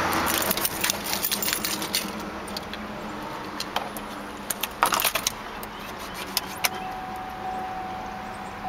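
Car keys jangling and clicking as the key goes into the ignition of a 2006 Chevrolet Colorado and is turned to the on position, with the engine not started. About seven seconds in, a steady high tone starts and holds.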